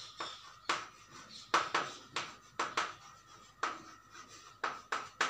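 Chalk writing on a chalkboard: about a dozen short, uneven taps and scrapes as the letters are written.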